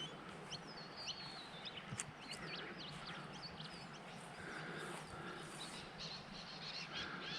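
Faint birdsong: many short chirps and quick whistled calls from several birds, scattered throughout, over a steady faint outdoor background noise.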